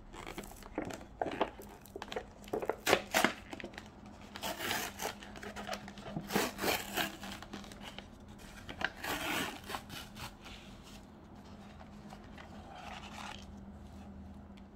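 Packaging of an instant noodle bowl being torn and crinkled open: the wrapping peeled off, the lid pulled back and a foil sauce pouch lifted out, in irregular bursts of tearing and crinkling that ease off over the last few seconds.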